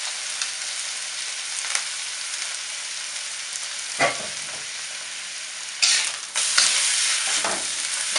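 Shredded boiled bamboo shoots and egg sizzling in hot oil in a wok. From about six seconds in, a spatula scrapes and tosses them against the metal wok, and the sizzle grows louder.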